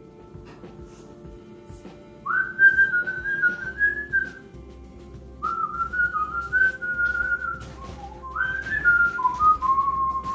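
A person whistling a short tune in three phrases, the last one sliding down in pitch, over a low steady background.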